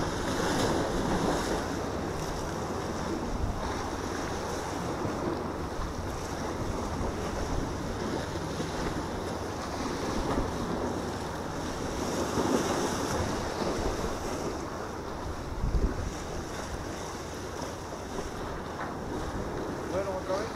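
Sea waves washing and splashing against the granite blocks of a rock jetty, swelling and easing every few seconds, loudest about a second in and again around twelve seconds in. Wind buffets the microphone now and then.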